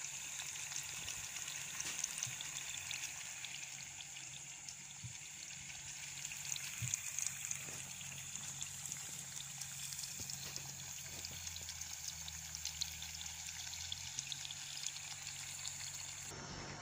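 Hot oil sizzling as murukku spirals deep-fry in a pan: a faint, steady sizzle full of fine crackles.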